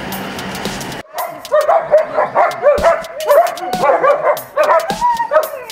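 German Shepherds whining and yipping excitedly in quick, high-pitched, rising and falling cries, starting suddenly about a second in.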